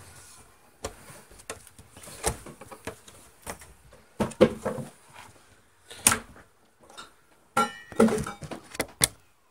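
Plastic back case of an Acer Aspire Z3-605 all-in-one being pried off, its retaining clips snapping loose: irregular clicks and knocks.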